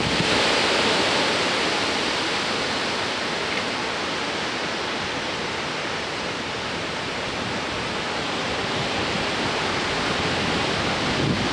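Strong wind from a severe thunderstorm, a steady dense rush of noise that eases slightly in the middle and builds again near the end, where gusts buffet the microphone.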